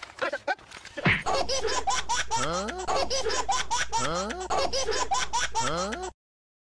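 Comic laughter sound effect: a fast, high-pitched cackling laugh that repeats, with its pitch sweeping upward again and again. It starts about a second in and cuts off abruptly about six seconds in.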